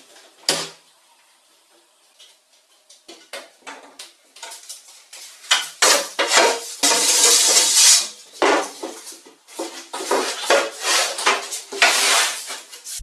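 Clatter, rubbing and knocking of a large sheet of 10 mm plywood being carried and handled. There is a sharp knock about half a second in, a loud scraping rustle around six to eight seconds in, and a run of knocks after it.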